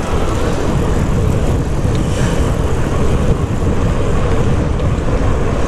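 Steady, low rumbling wind noise buffeting a bicycle-mounted camera's microphone while riding at speed, with the hiss of tyres on asphalt beneath it.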